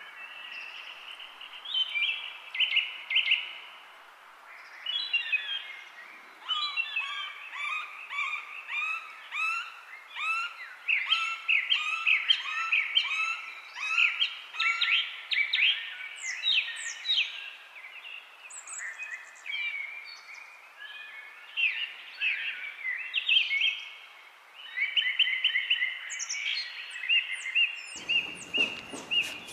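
Many birds chirping and trilling, a busy run of short repeated notes over a faint hiss. Near the end a broad rushing noise sets in.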